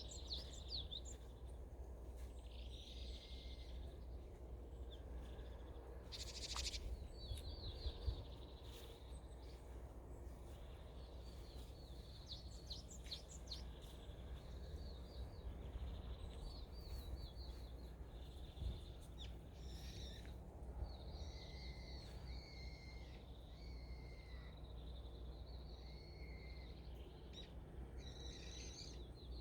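Small forest birds calling in winter, with many short, high chirping series and some lower notes later on, over a steady low rumble of wind.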